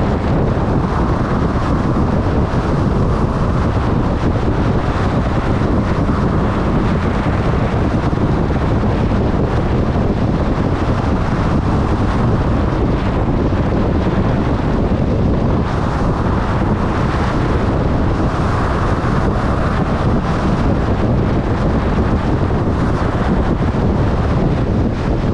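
Steady loud wind rush buffeting the microphone of a moving motorcycle, with the motorcycle's running underneath.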